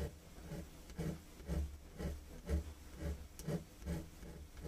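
Rhythmic hand-stroke rubbing or scraping, about two strokes a second in an even back-and-forth rhythm, from hand work on the small pistol parts close to the microphone.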